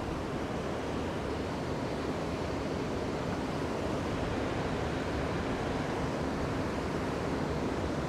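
Steady rush of river water pouring over a low dam spillway, mixed with wind buffeting the microphone.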